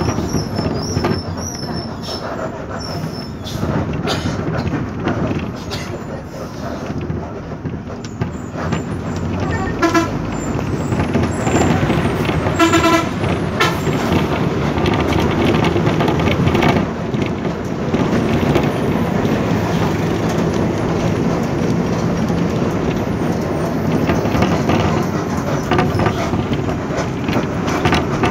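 Steady road and engine noise inside a moving vehicle, with a horn tooting twice: a short toot about 10 seconds in and a longer one a few seconds later.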